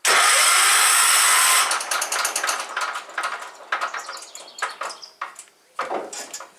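Kohler flathead engine of a Cub Cadet 1250 garden tractor cranked by its electric starter: a loud whir for about a second and a half, then a fast, uneven clatter that fades out near the end. It is spinning very fast, almost like there's no compression to it at all.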